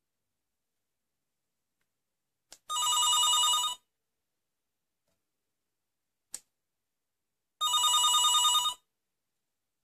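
Sanyo AD400 landline telephone ringing with an incoming call: two trilling rings about a second long, roughly five seconds apart, each preceded by a short click.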